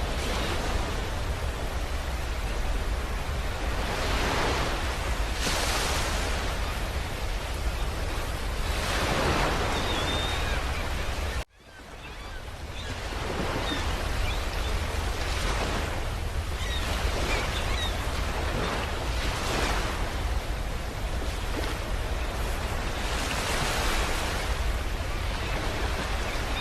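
Sound effect presented as the sound of the star UY Scuti: a steady rushing noise over a deep rumble, swelling and easing every few seconds like surf. It cuts out suddenly about eleven and a half seconds in and fades back up over a couple of seconds.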